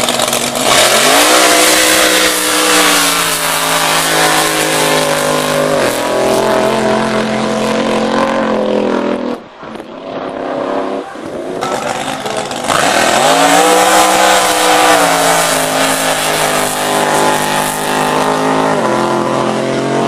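Supercharged, methanol-fuelled 540-cubic-inch Hemi V8 of a top alcohol hydroplane drag boat at full throttle, heard over two separate passes. Each pass rises sharply in pitch at launch, holds high and loud, then drops as the throttle comes off.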